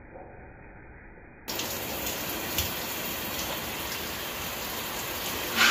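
Shower water spraying, a steady hiss that cuts in abruptly about a second and a half in after a faint, muffled stretch. There is a small click partway through and a loud, short knock near the end.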